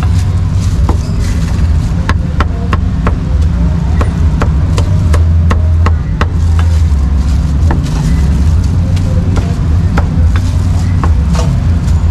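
Cleaver chopping roast meat on a thick round wooden chopping block: an irregular run of sharp knocks. A steady low rumble runs underneath and is the loudest part of the sound.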